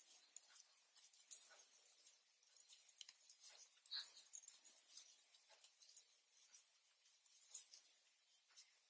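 Faint, irregular clicks and light scratching from hand knitting: the needles tapping together and sliding through the yarn as stitches are worked.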